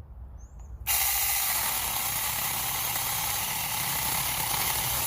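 Saker battery-powered mini chainsaw running, its chain spinning with a steady high hiss that starts abruptly about a second in and holds level.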